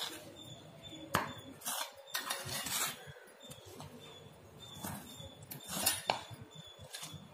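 A spoon scraping and knocking against the sides of a bowl as it stirs a thick, damp mixture of biscuit powder, sugar, flour and milk, in irregular strokes with a few sharper clinks.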